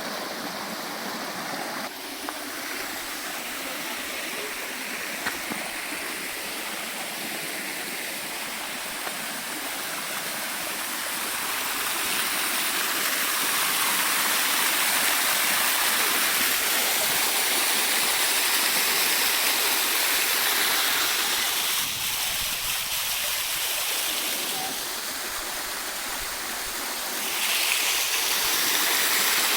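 Waterfall and stream water rushing steadily, growing louder about twelve seconds in, easing for a few seconds near the end, then louder again.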